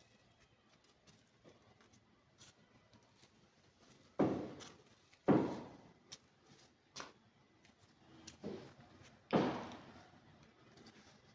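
Three heavy knocks on machine parts being worked on, each dying away over about half a second, with a few lighter clicks and taps between them.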